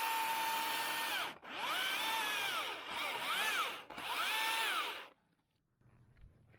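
Milwaukee M18 battery chainsaw running under the trigger: its motor whine holds, then drops off about a second in, and comes back in three short bursts, each rising in pitch as the chain spins up and falling as it is let off. It stops about five seconds in.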